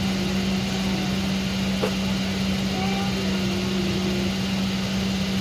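Steady aircraft drone inside a Boeing 777-200 cabin on the ground, with a strong unchanging low hum. Faint voices murmur underneath, and there is a single click about two seconds in.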